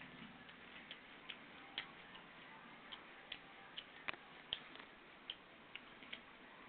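Faint, irregular wet clicks and smacks of a mouth chewing raw tomato, about two or three a second.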